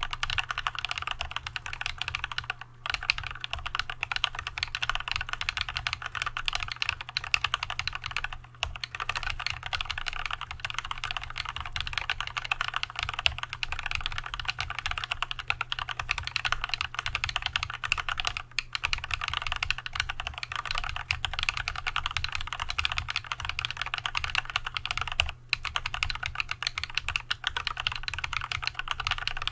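Continuous fast typing on an Archon AK87 mechanical keyboard fitted with Tealios V2 linear switches lubed with Christo 129: a dense, even stream of keystrokes, broken by short pauses about four times.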